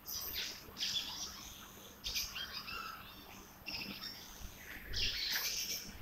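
Birds singing: about five short bursts of high chirping song spread across a few seconds.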